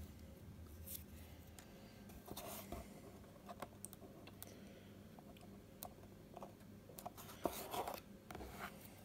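Faint handling noises of a card model building being turned over in the hands: scattered light taps and clicks, with a few brief rubs of card, the most noticeable near the end.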